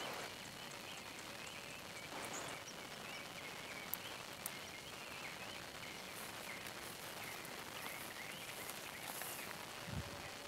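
Faint outdoor ambience: a steady hiss with scattered small chirping animal calls, two light clicks about four seconds in, and a low thump near the end.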